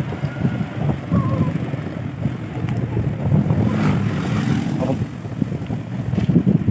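Wind buffeting the microphone of a moving rider: an uneven, fluttering low rumble. A brief higher rushing sound rises about four seconds in.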